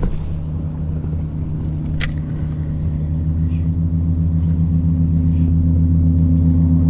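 An engine running steadily, slowly growing louder, with a sharp click about two seconds in.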